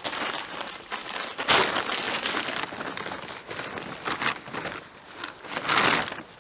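Irregular rustling and crinkling of a nylon hiking tent being handled, with two louder rustles, one about one and a half seconds in and one near the end.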